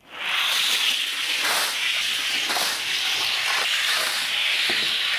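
Toy car rolling down a track, a steady loud hiss with a few faint clicks.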